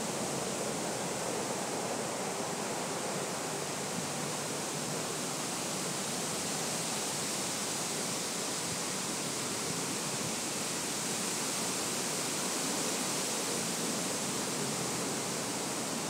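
Wind rustling through the leafy canopy of tall trees: a steady, even hiss with no distinct events.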